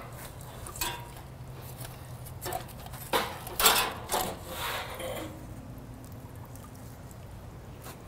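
Barbecue spatula and tongs scraping and clinking on the grill grate of a Brinkmann Smoke 'N Grill as a whole smoked chicken is worked loose and lifted. There are several short scrapes and knocks in the first five seconds, then only a faint low hum.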